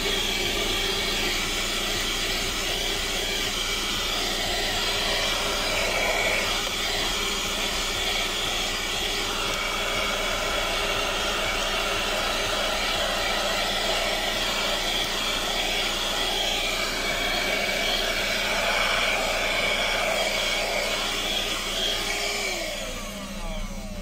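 Piranha PVC 4005 cigarette-lighter-powered handheld car vacuum cleaner running steadily as its nozzle is worked over the car's floor carpet. Near the end its motor whine falls in pitch and it stops.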